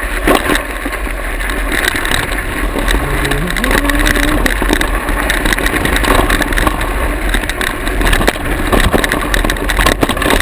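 Wind rushing over the microphone and a mountain bike rattling and clattering as it rides fast down a rough dirt trail.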